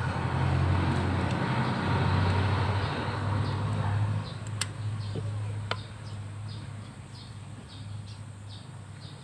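A motor vehicle's engine running, loud for the first four seconds and then fading to a lower hum, with a couple of sharp clicks near the middle.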